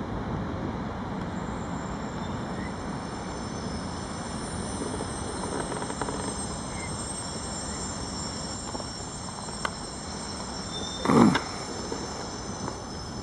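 Railyard ambience: a steady low rumble with several thin, steady high-pitched whines over it. A short, loud sound that falls sharply in pitch comes about eleven seconds in.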